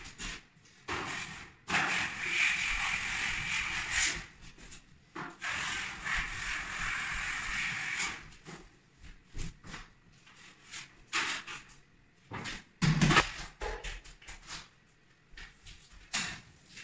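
Drywall smoothing blade on a telescopic pole scraped along ceiling joints, smoothing wet joint compound in two long strokes of two to three seconds each. Then scattered light knocks and a louder thump about 13 seconds in.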